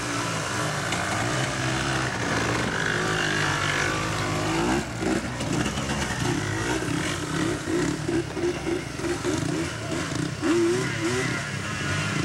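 Dirt bike engines running and revving, several machines at once. From about five seconds in, the pitch rises and falls in quick repeated surges as the bikes are throttled up and back off.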